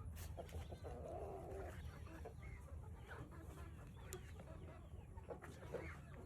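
Chickens clucking softly, with many short calls scattered throughout.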